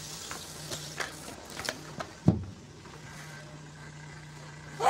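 Scattered knocks and rustles of someone rummaging through bedding and belongings, with one sharper thud a little over two seconds in, over a steady low hum.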